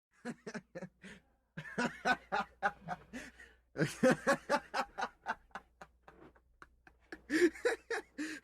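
A person laughing: runs of short snickering chuckles, several a second, broken by brief pauses.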